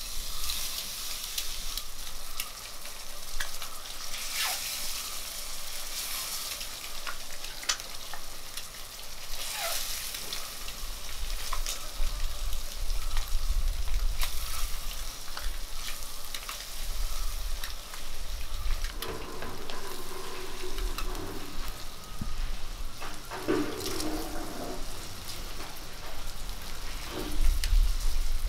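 Halved boiled eggs frying in hot spiced oil in an iron kadai: a steady sizzle with scattered crackles and pops, and the scrape and tap of wooden spatulas turning the eggs.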